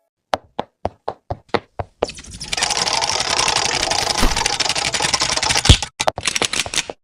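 Bicycle rear hub ratcheting: a string of separate clicks at about five a second, then from about two seconds in a fast, steady ticking buzz as the wheel spins freely, ending in a few more clicks.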